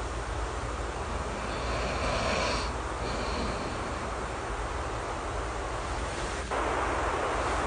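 Steady rain ambience over a low rumble, with a sleeper's soft snoring breath about two seconds in. Near the end the rain noise abruptly gets louder.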